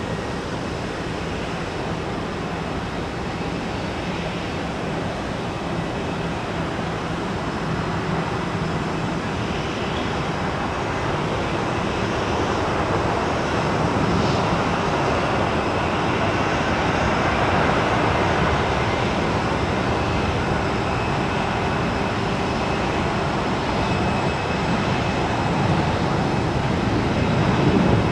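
Jet airliner engines, a steady rushing noise that grows gradually louder.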